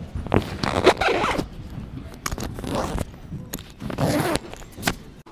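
A zipper pulled in two rasping strokes, about a second in and again about four seconds in, among fabric rustling and sharp knocks from the camera being handled.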